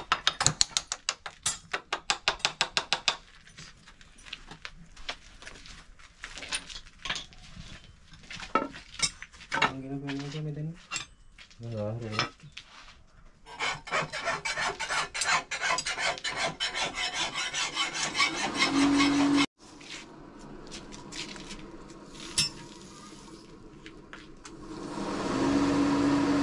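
Hand file worked in rapid, even strokes over a knife clamped in a bench vise, then irregular scraping and knocks. Near the end a steady motor hum starts.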